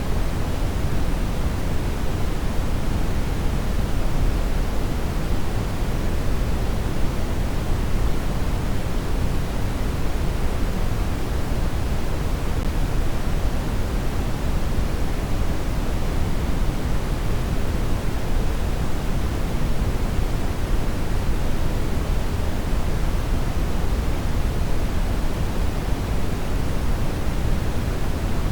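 Steady synthetic noise: an unbroken rushing hiss, fuller in the bass than in the treble.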